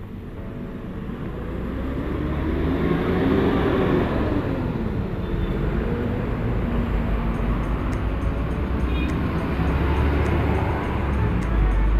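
Diesel engines of large buses pulling past close by in slow traffic, a steady low rumble that swells over the first few seconds. One engine note rises and then falls about three seconds in.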